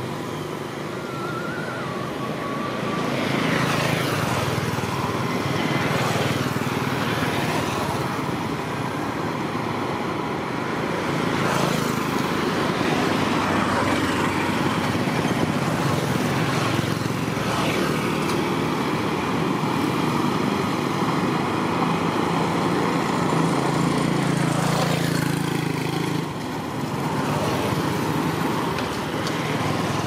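Small motorbikes and scooters passing one after another on a street, each engine note swelling and sweeping in pitch as it goes by, over a steady hum of traffic.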